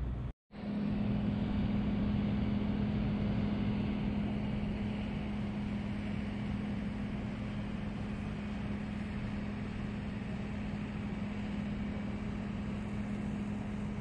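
Steady downtown street noise with a constant low hum underneath, starting after a momentary silent gap.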